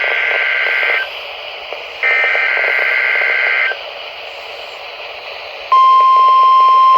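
NOAA Weather Radio weekly test received on a weather radio with static hiss: the end of one burst of the two-tone SAME data header, a second burst, then a steady 1050 Hz warning alarm tone that starts about five and a half seconds in and is the loudest part.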